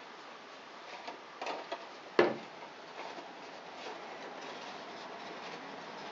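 Quiet handling of a folded paper model as glued flaps are pressed together: light paper rustling with a few soft clicks, and one sharp knock about two seconds in.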